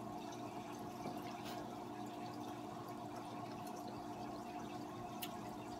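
Steady water trickle and hum of an aquarium filter, with a few faint clicks from chewing corn on the cob.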